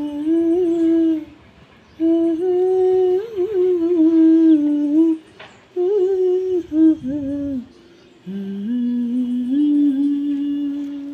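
A woman humming a slow melody without words, in long held notes, in four phrases with short breaths between them.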